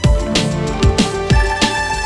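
Music with a steady beat: deep bass drum hits about two to three times a second under held synth tones.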